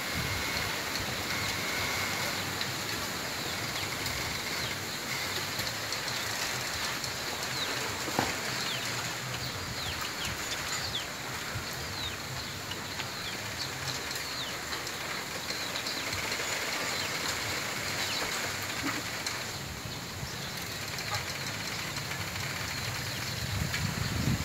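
Wind moving through a bamboo grove, the leaves and stems rustling with a steady hiss. A few short high squeaks come through in the middle, and there is a single sharp knock about eight seconds in.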